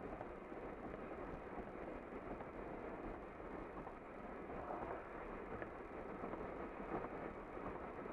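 Steady road noise of a car driving at highway speed, heard from inside the cabin.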